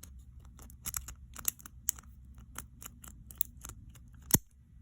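A quint rake worked in and out of the keyway of a Masterlock 130 brass pin-tumbler padlock under tension: a rapid, irregular series of sharp metallic clicks as the rake skips over the pins, with one louder click near the end.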